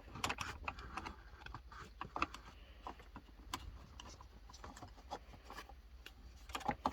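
Scattered small clicks and taps of hands handling tools and speaker wiring on a workbench, with a cluster of sharper clicks near the end.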